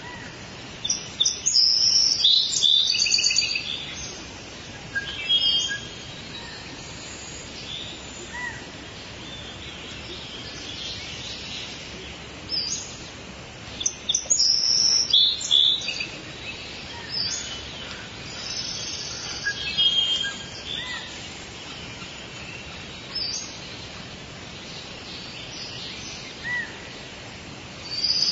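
Birds singing and chirping in short, high phrases every few seconds over a steady background hiss. The song is busiest shortly after the start and again around the middle.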